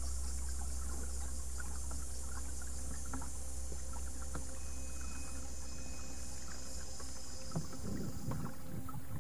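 Kayak paddling on calm creek water: small drips and splashes from the paddle blades, louder near the end. Under it are a steady low wind rumble on the bow-mounted camera's microphone and a steady high hiss.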